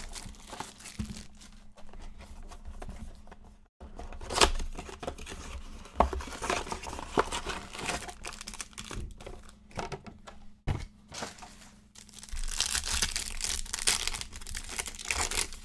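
Foil trading-card packs being torn open and crinkled by hand: irregular crackling and rustling with sharp snaps, louder for a few seconds near the end.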